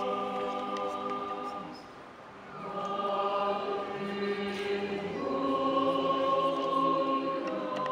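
Church choir singing a slow liturgical hymn in long held chords, with a short break between phrases about two seconds in.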